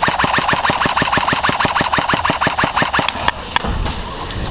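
Airsoft gun firing a long full-auto burst, a rapid even rattle of about ten shots a second that stops about three seconds in, with one more single shot soon after.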